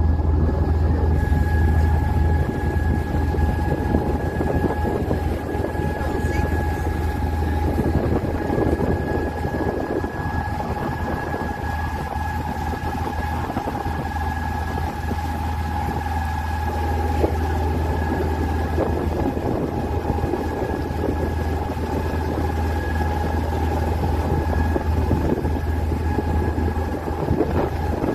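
An open tour boat's engine running steadily, heard from on board: a low drone with a steady whine above it.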